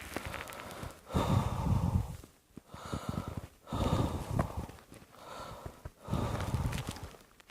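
A person coughing and breathing hard: about six rough bursts, each roughly a second long, with short breaks between them. The loudest burst comes about a second in.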